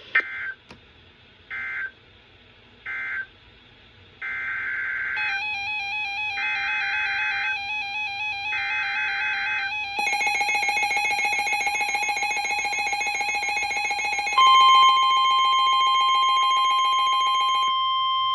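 Emergency Alert System SAME data bursts, a chirpy two-pitch squeal. First come three short end-of-message bursts, then three longer header bursts from about four seconds in. From about five seconds a warbling electronic alert tone joins them, growing louder and buzzier at about ten seconds. From about fourteen seconds comes a steady, loud single-pitch NOAA Weather Radio attention tone.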